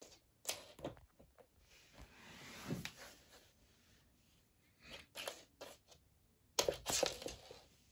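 A metal hairpin clicking and scraping across a laminate floor as a cat bats it with its paws: scattered light ticks, a longer scrape in the first half, and a quick flurry of clicks near the end.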